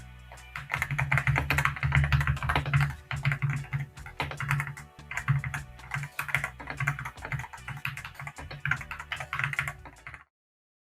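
Fast typing on a mechanical keyboard fitted with unlubricated Gateron Milky Yellow Pro linear switches: rapid runs of clacking keystrokes with brief pauses, over quiet background music. The typing stops about ten seconds in.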